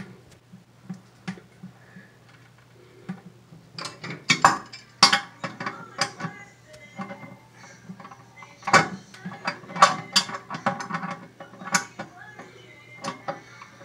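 Metal hand tool clicking and clinking irregularly against the nut on a toilet's hold-down bolt as it is turned and tightened, to press the toilet down onto its wax ring.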